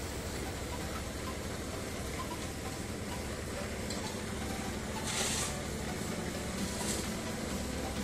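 Concrete mixer's engine running steadily at the building site, with a short hissing rush about five seconds in.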